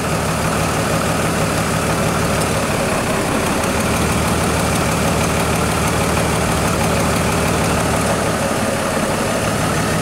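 Chevrolet TrailBlazer engine idling steadily with a misfire: cylinder two is misfiring constantly.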